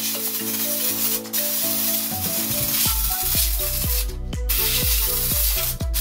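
McCulloch steam cleaner hissing as its nozzle jets steam onto greasy gas-stove grates. Background music plays over it, and a steady beat comes in about three seconds in.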